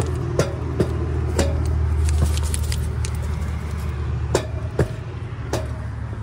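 A steady low hum with a handful of footsteps and sharp clicks.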